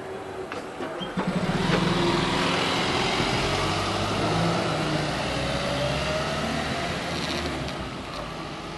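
Volvo B5LH diesel-electric hybrid double-decker bus pulling away: its engine comes in strongly about a second in, with a rising whine as it gathers speed, then fades as the bus moves off.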